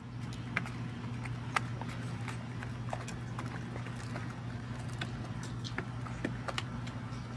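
Hens pecking grain from a metal feed tray: irregular sharp clicks of beaks striking the grain and the metal, over a steady low hum.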